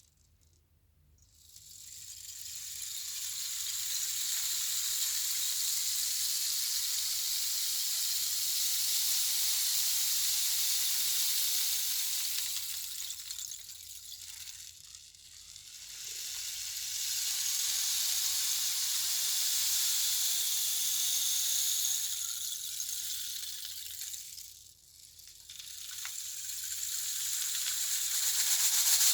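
A steady high hissing noise like sizzling, made as a sound effect. It swells up over the first few seconds, sinks briefly about halfway through, rises again, dips once more near the end, then builds back up.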